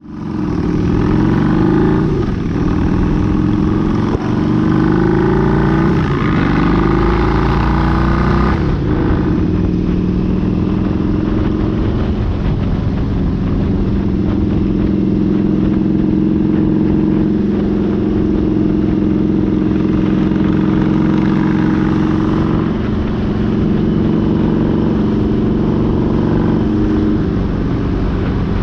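Harley-Davidson V-Rod V-twin engine accelerating through the gears, its pitch rising and dropping at each shift over the first nine seconds or so, then running steadily at cruising speed, with wind noise on the camera mounted low on the bike.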